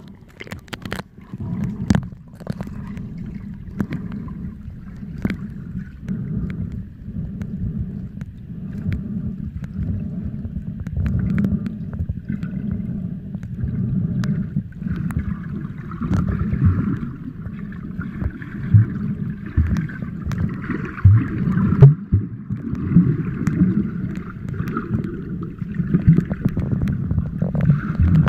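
Muffled underwater sound heard through a camera housing: a steady low rumble of moving water with scattered clicks and knocks, and bubbling from a snorkeler swimming close by.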